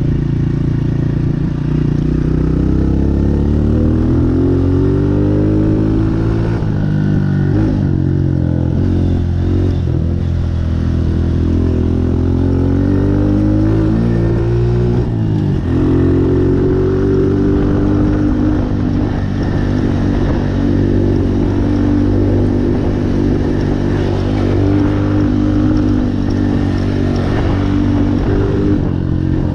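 Honda CRF125F big-wheel dirt bike's single-cylinder four-stroke engine under way. In the first half it revs up and down repeatedly, with a sharp drop in pitch about halfway. After that it holds a steadier, higher pitch.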